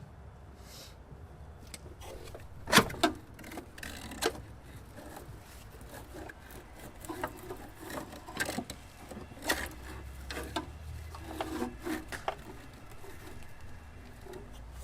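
Irregular clinks and knocks of hand tools on metal parts during engine-bay disassembly, with two sharp clanks about three seconds in and scattered smaller taps after.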